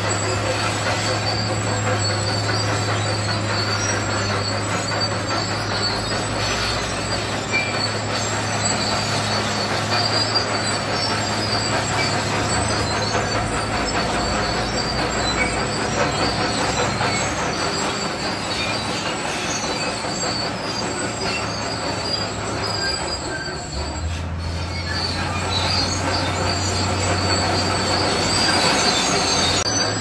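Crawler bulldozer's diesel engine running under load while its steel tracks squeal and clank as it pushes rock fill. About three quarters of the way through, the engine note dips and settles lower.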